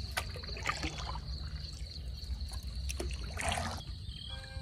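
Water trickling and sloshing, with a few light knocks and a short splash-like rush about three and a half seconds in. Steady music tones come in just before the end.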